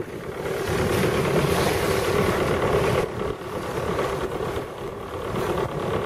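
Sailboat under way on a choppy sea: wind on the microphone and the rush of water along the hull, over a steady hum. The rush is louder for the first few seconds.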